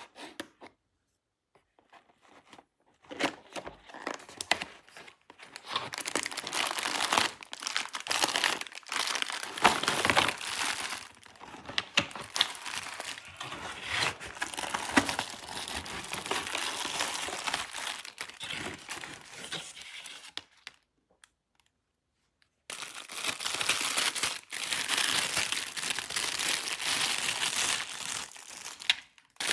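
Toy packaging being crinkled and torn open: dense crackling and tearing that starts a few seconds in, stops for about two seconds past the middle, then starts again.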